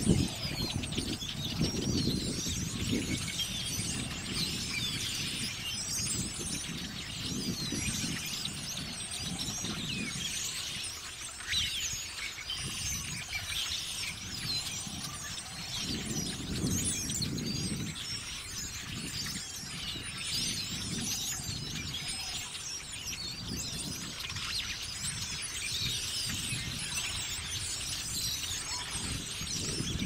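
A large flock of blackbirds calling in a constant, dense chatter of many overlapping chirps, with wind buffeting the microphone in gusts.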